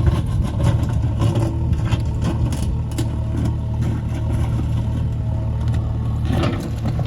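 JCB backhoe loader's diesel engine running steadily, with scattered clicks and knocks and a short burst of clatter near the end.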